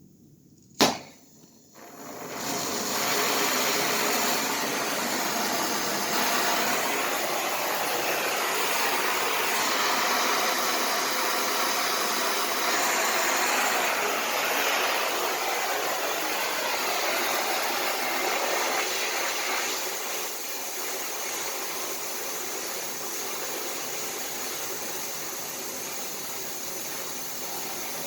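Electric arc welding: a sharp click about a second in, then the arc is struck about two seconds in and burns steadily as a continuous hissing noise, slightly quieter for the last several seconds.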